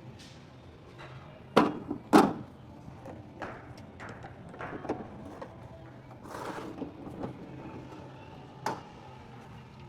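A series of scattered knocks and clunks of work in progress, with two sharp, loud ones about a second and a half and two seconds in.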